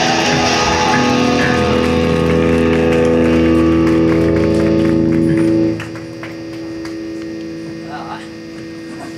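Live rock band's electric guitars and bass holding a loud, ringing sustained chord that cuts off abruptly a little over halfway through, leaving quieter amplifier hum and ringing tones.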